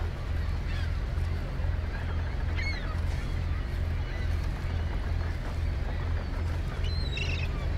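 Gulls calling a few times, once about two and a half seconds in and twice near the end, over a low, steady throbbing rumble.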